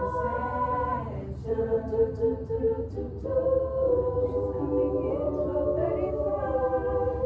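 A school choir singing a cappella in harmony, holding long chords, with short breaks between phrases about a second and about three seconds in.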